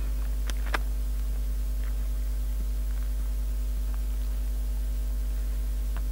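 Steady electrical mains hum, a low 50 Hz drone with higher overtones, with a couple of faint short clicks in the first second.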